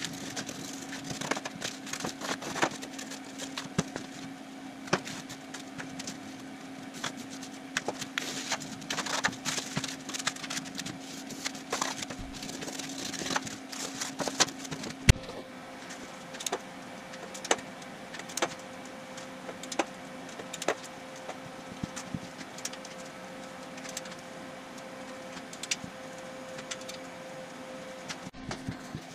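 Utility knife slicing through cardboard, with cardboard sheets being handled: many short scrapes, cuts and taps over a steady background hum.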